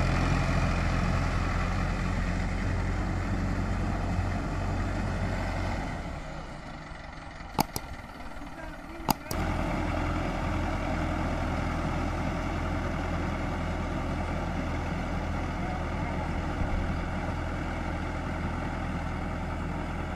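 Mahindra Arjun 555 DI tractor's four-cylinder diesel engine running steadily under load while working a flooded field. About six seconds in the sound drops away for about three seconds, with two sharp clicks about a second and a half apart, then the engine comes back at its steady level.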